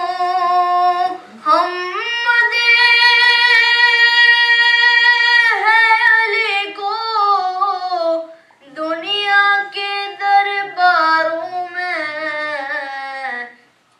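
A boy's solo voice singing an Urdu manqabat, a devotional poem in praise of Ali, in long melodic phrases with no instruments. One note is held for about three seconds from about two seconds in, with short breath pauses between phrases.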